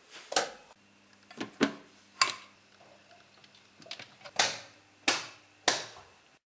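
A series of sharp plastic clicks, about seven in all, from a wall light switch being flicked and then the button of a small appliance being pressed.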